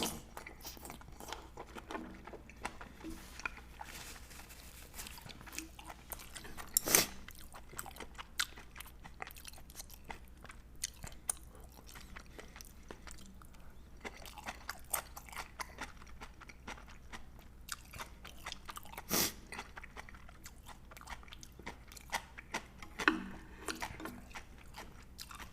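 A person eating: chewing and crunching bites of food, with scattered small clicks and a few louder sharp sounds, the loudest about seven seconds in and another about nineteen seconds in.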